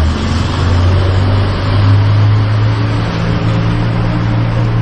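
A motor vehicle's engine running steadily close by, its low hum shifting slightly in pitch about a second and a half in, over a wash of street traffic noise.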